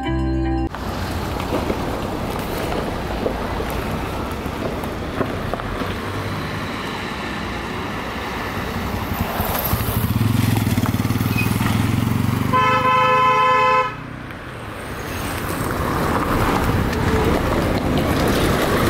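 Road traffic on a hill road, with vehicle engines passing and a low engine rumble swelling past about halfway through. A vehicle horn sounds once, a single steady note held for about a second, about two-thirds of the way in.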